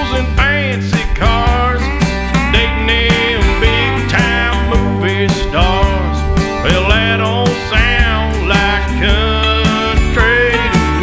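Country music instrumental break: gliding guitar lines over a bass line and a steady drum beat.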